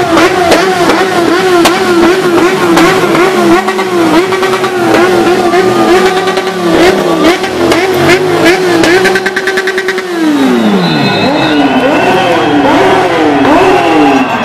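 An engine held at high revs for about ten seconds, then revs dropping away sharply and blipped up and down several times, with a scatter of sharp cracks over the held part.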